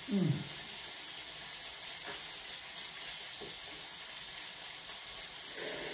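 Vegetables sizzling steadily in hot oil in a wok. Right at the start there is a short low sound that falls in pitch.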